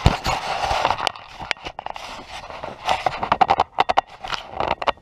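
A knock on the body-worn action camera as something brushes across its lens, followed by scraping and rubbing on the camera, then quick runs of clicks and knocks.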